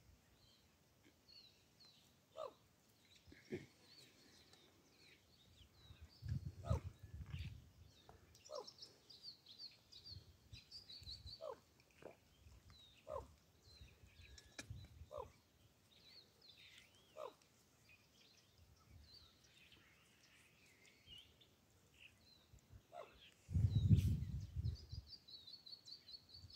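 Faint open-air ambience: small birds chirping in quick high series throughout, with scattered short sharp notes and a few low rumbles, the loudest near the end.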